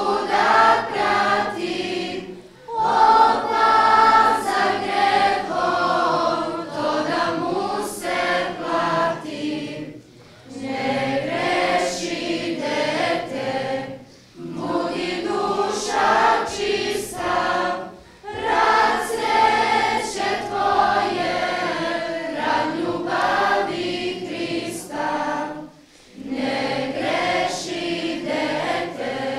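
Church choir singing an Easter song in phrases, with short pauses between them every few seconds.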